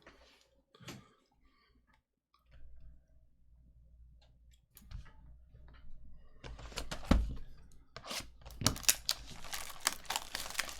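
Trading card pack wrappers being torn open and crinkled. It is faint at first, then from about six and a half seconds a busy run of tearing and crackling with a few sharp rips.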